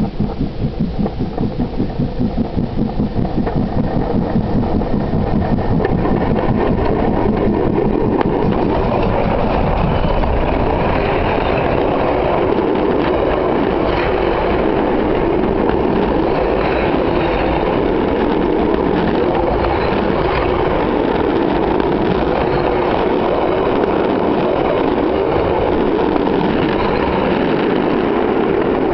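Steam train passing directly over a camera between the rails: the locomotive's exhaust beats come in a quick even rhythm as it approaches, then a steady, loud rumble and clatter of steel wheels on the rails with occasional sharp knocks as the engine and carriages roll overhead.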